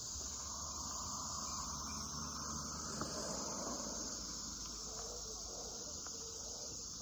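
Steady, unbroken chorus of crickets, a continuous high-pitched chirring.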